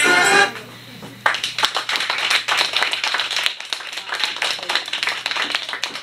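The song's final notes cut off about half a second in. From about a second in, a small audience claps, a dense patter of hand claps.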